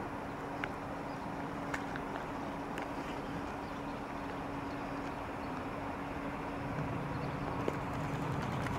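Railway station ambience: a steady hum and a low rumble from a distant approaching electric train, the rumble growing louder about seven seconds in, with a few faint clicks.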